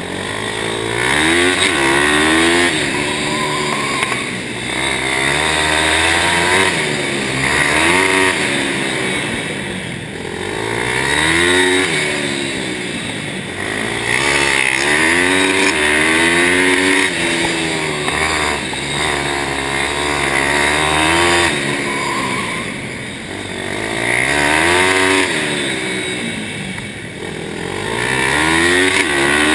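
Pit bike engine heard from on board while lapping, revving up hard and easing off over and over, a rise and fall every three to four seconds, as the bike accelerates out of each turn and backs off into the next.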